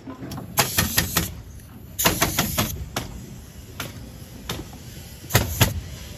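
Pneumatic framing nailer firing nails into wood studs in quick runs of sharp shots: about five in rapid succession near the start, another rapid run about two seconds in, then single shots and a loud pair near the end.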